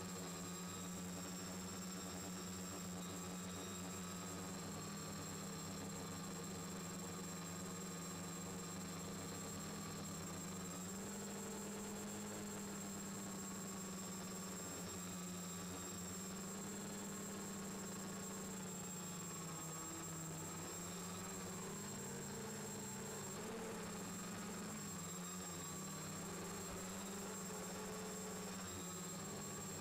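The X550 quadcopter's four Turnigy D2830 1000KV brushless motors and propellers in flight, heard from the onboard camera as a steady buzzing hum. Its pitch steps up about a third of the way in and wavers up and down in the second half as motor speed changes, over a faint steady high whistle.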